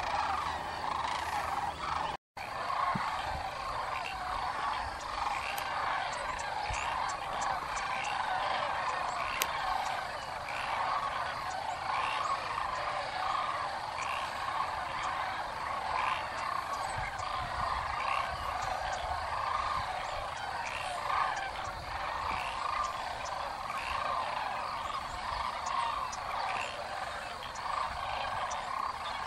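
Dense, continuous chorus of many animals calling together across a wetland, with overlapping rolling calls that never break.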